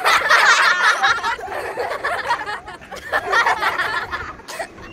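Excited laughter and giggling in two stretches: one in the first second or so, another from about two seconds in to near the end.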